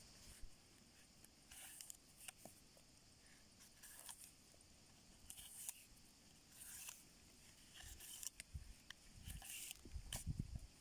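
Faint scraping strokes and small clicks of paracord being pulled out through the eyelets of a knife sheath, with dull low handling bumps near the end.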